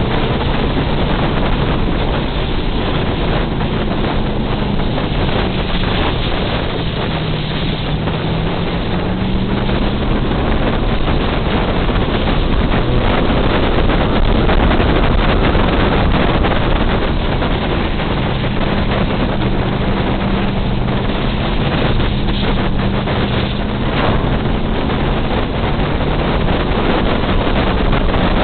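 Enduro race car's engine running hard under load, its pitch dipping slightly and rising again, under heavy wind rush on a hood-mounted microphone.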